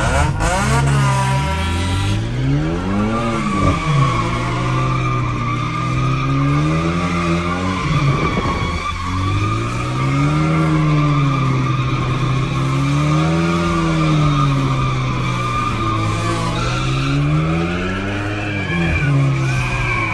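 Hyundai Genesis Coupe 2.0T's straight-piped turbocharged four-cylinder engine revving up and down in repeated swells every two to three seconds while the tires squeal continuously through a drift, heard from inside the cabin.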